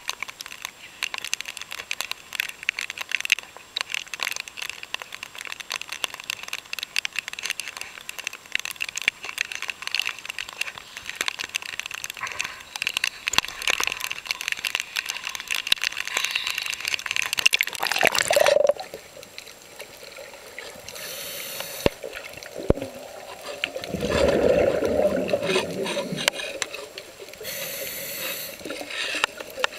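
Underwater sound on a scuba dive: a dense crackle of fine clicks that stops abruptly about eighteen seconds in. Near the end comes a loud burst of bubbling from a diver's exhaled breath.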